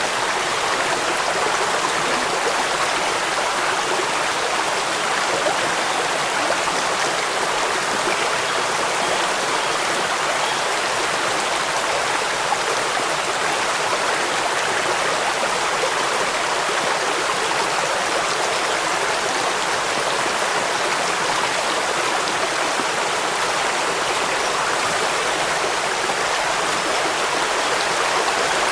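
Steady rushing water, flowing evenly without a break.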